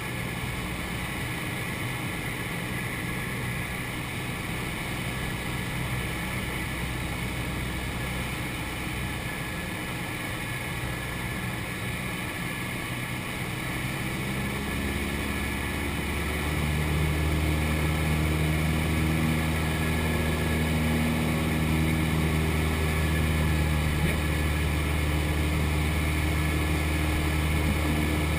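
Cessna 172's piston engine and propeller running steadily, heard inside the cockpit. About halfway through it grows louder and slightly higher in pitch as the engine speeds up.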